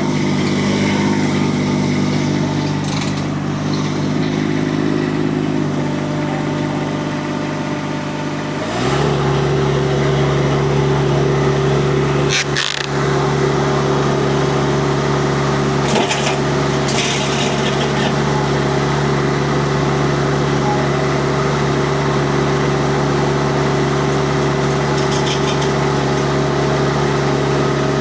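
Mini skid steer's Kubota diesel engine running at a lower speed, then revving up about nine seconds in and holding steady at the higher speed. A few short knocks and clicks cut through about halfway.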